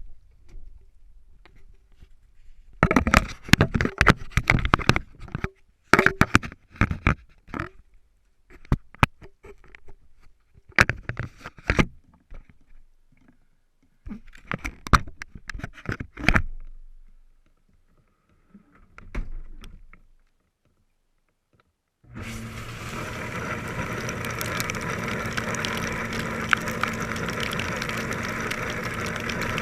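A run of sharp clattering knocks, then a short quiet, then the dishwasher starts running about three-quarters of the way through with a steady hum and hiss.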